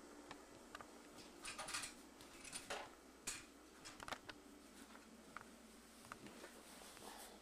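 Quiet room with scattered light clicks and taps and a few brief soft rustles.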